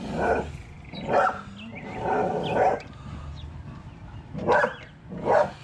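A dog barking repeatedly, about six short barks with a gap near the middle.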